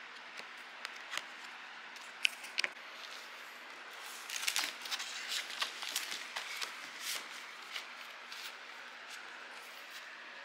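Paper and card packaging of a vinyl LP being handled, rustling and crinkling. There are a few sharp clicks in the first couple of seconds, then a dense patch of crinkling from about four to eight seconds in, which tapers off.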